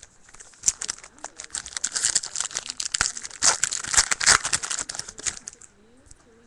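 Hockey card pack wrapper being torn open and crinkled in the hands, a dense run of crackling and rustling that fades out shortly before the end.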